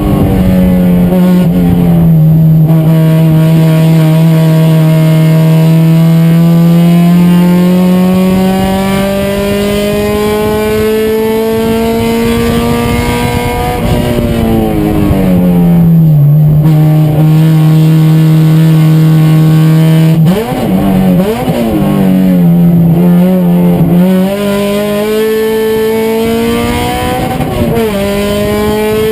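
Race car engine under hard throttle, its pitch climbing slowly and steadily. It falls off about halfway through, then goes through a few quick rises and falls before climbing again near the end.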